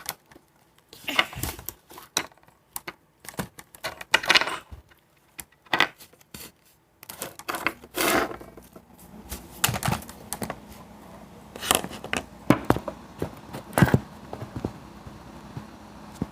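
Handling noise close to the microphone: an irregular run of clicks, taps and rustles as things are moved about and set up.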